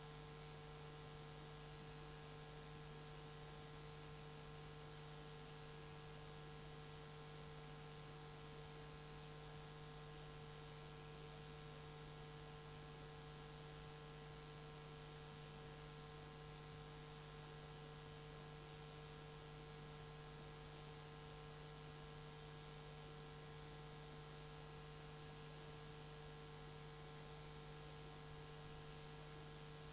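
Faint steady electrical hum with hiss, several fixed tones held without change; no other sound stands out.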